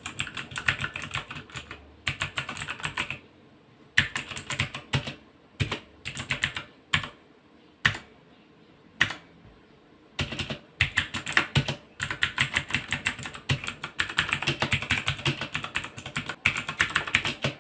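A RAKK Tandus mechanical keyboard with clicky Outemo Blue switches being typed on, noisy. Fast runs of keystrokes thin out to scattered single presses for several seconds in the middle, then pick up again into rapid typing.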